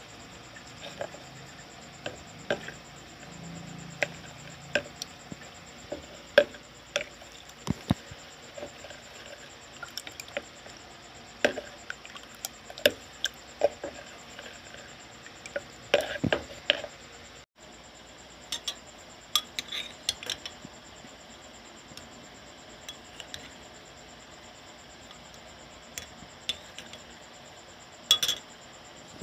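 A spoon stirring a milky tapioca-pearl mixture, knocking and clinking irregularly against the sides of the container, with a brief break about two-thirds of the way through.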